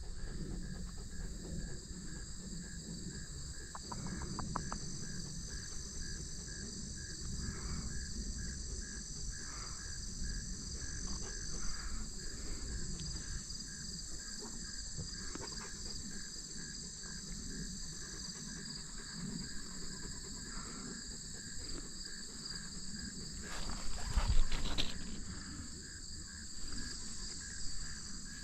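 Field insects such as crickets chirping steadily: a continuous high trill with a rapid, regular chirp beneath it. Near the end comes a brief louder burst of noise.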